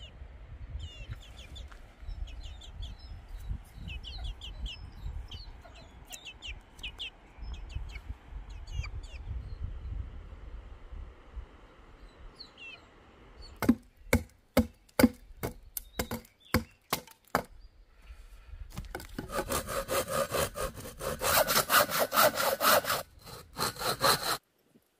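Hand pruning saw cutting a wooden board, fast back-and-forth strokes for the last several seconds, stopping abruptly. Before it, a dozen or so sharp wooden knocks, and earlier small birds chirping over a low rumble.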